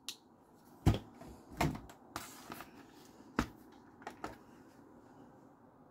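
Irregular handling knocks and clicks, about eight in all and the loudest about a second in, as a folding pocket knife and a digital kitchen scale are handled and set down, with the scale's button pressed.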